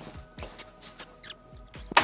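Plastic clicks and rattles of cassette tapes being handled at a stereo's cassette deck, a quick run of small taps with one sharp click at the end, over faint background music.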